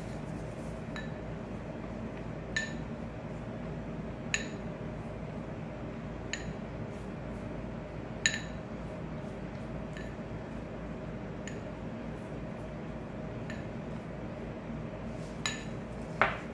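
Glass bowl clinking as a silicone pastry brush is tapped and dipped against its rim, about eight light chinks at uneven intervals, each with the same short glassy ring; the loudest come about 8 s in and near the end. A steady low hum runs underneath.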